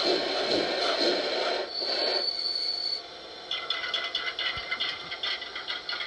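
Digital steam-locomotive sounds from the ESU LokSound 5L decoders playing through speakers in an LGB 2015D model locomotive and tender: a hissing steam sound, a high steady tone lasting about a second from near two seconds in, then fast rhythmic pulses after a short quieter gap.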